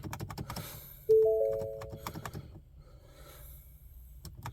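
The Ford F-250's warning chime: a three-note bong that sounds once about a second in and fades over about a second. Rapid light clicking runs throughout.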